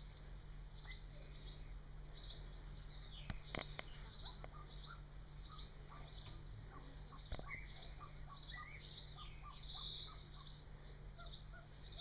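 Golden pheasant chicks peeping: short high chirps repeating several times a second. A few sharp knocks come about three to four seconds in and once more past the middle.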